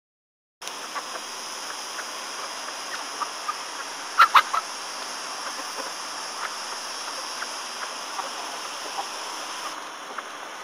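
Hens clucking now and then over a steady hiss, with a pair of louder sharp sounds about four seconds in.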